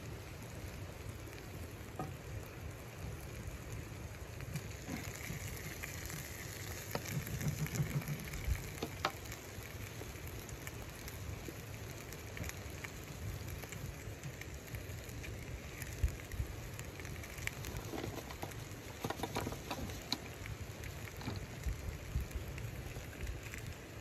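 Chicken pieces sizzling in a frying pan on a wood stove: a steady frying hiss with scattered short pops and crackles.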